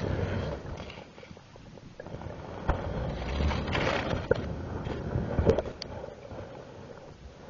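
Muffled water rushing and rumbling, picked up underwater by a camera on a line as it swings through the water, with several short knocks and taps in the middle as it moves about.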